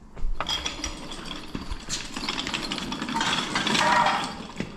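Metal clanking and rattling from a hydraulic jack being handled and moved out from under the car, with a few sharp knocks and a busier rattle about three seconds in.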